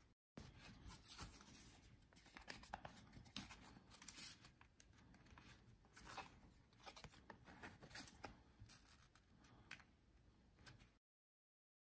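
Faint handling noise: fingers rubbing and scraping a stuffed card case, sliding plastic cards and folded paper bills against each other, with scattered small clicks and scratches. It cuts off to dead silence near the end.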